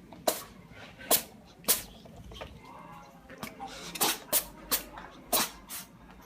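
A cat sneezing repeatedly: about eight short, sharp sneezes, three in the first two seconds, then a run of five close together about four seconds in.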